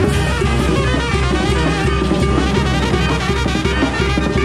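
Live Mexican banda brass band playing: sousaphones, trumpets and trombones over a busy drum kit and conga drum.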